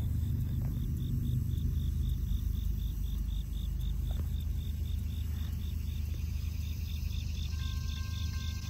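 Insects chirping in a steady, even pulse of about four high chirps a second, over a constant low rumble.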